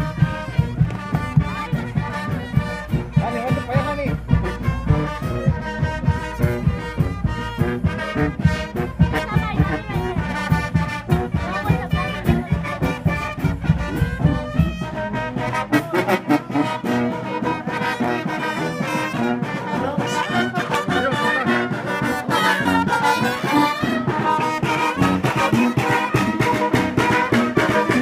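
A street brass band playing: trumpets, saxophones and a sousaphone over a steady bass-drum beat. The low drum beats stop about halfway through, and the horns grow louder near the end.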